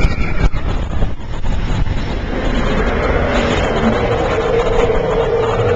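Roller coaster train rumbling along its track at speed, with a steady whine coming in about halfway through.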